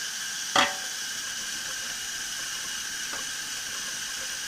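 Tap water running steadily into a stainless-steel sink, with one sharp knock about half a second in and a fainter one about three seconds in.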